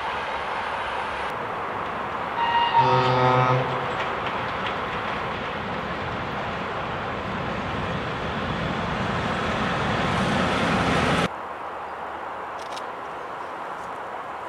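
A train horn sounds once for about a second, then a freight train of tank cars rolls past behind a two-section electric locomotive, its rumble growing louder until it cuts off suddenly. A quieter, steady rumble of a distant train follows.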